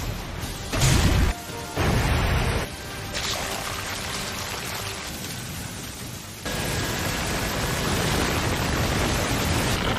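Anime battle sound effects over background music: two heavy booming blasts in the first few seconds, then a steady rushing hiss that gets louder from about six and a half seconds in.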